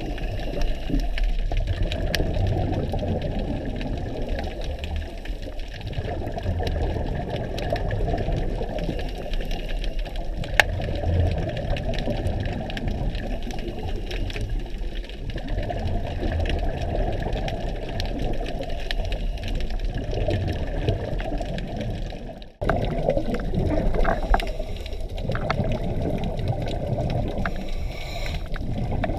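Underwater ambience of a scuba dive: a muffled, rushing water sound with the low gurgle of a diver's exhaled regulator bubbles swelling every few seconds. It cuts out for a moment about 22 seconds in, then carries on.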